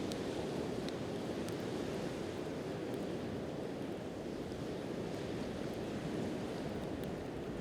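Steady wash of sea surf, with a few sharp pops from a wood campfire near the start and near the end.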